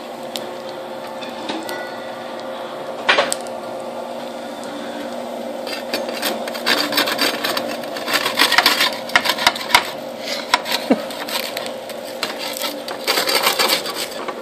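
Metal spatula scraping and clicking against a perforated metal pizza pan as it is worked under fried eggs. The scraping starts about six seconds in, over a steady hum, after a single sharp knock about three seconds in.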